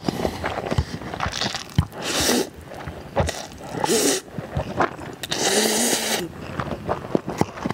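Buldak fire noodles being slurped and chewed close to the microphone: three slurps, the last and longest about five seconds in, with wet chewing and lip-smacking clicks between them.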